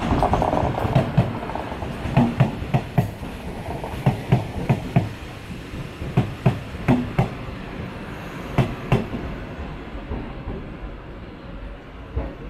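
Taiwan Railways EMU500 electric multiple unit passing, its wheels knocking over rail joints in quick pairs of clicks (clickety-clack) over a steady rolling rumble. The knocks stop about nine seconds in and the rumble fades.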